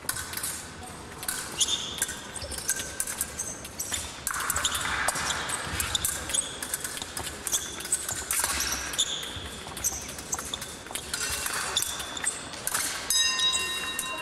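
Épée blades clicking and clashing, with sports shoes squeaking on the piste, as two fencers fence a bout in a large hall. About 13 seconds in, the electric scoring apparatus starts a steady tone that signals a touch has registered.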